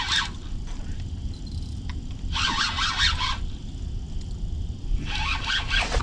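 Fishing reel buzzing in three bursts of about a second each, a couple of seconds apart, while a hooked catfish is fought on a heavily bent rod. A low steady rumble runs underneath.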